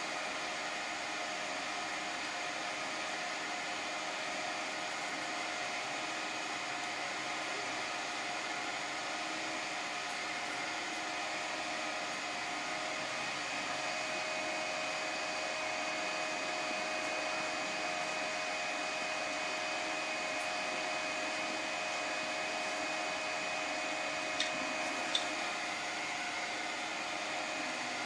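3D printer running mid-print: a steady whirring hum from its fans and stepper motors, with a few held whining tones that shift slightly as the print head moves. Two short clicks come near the end.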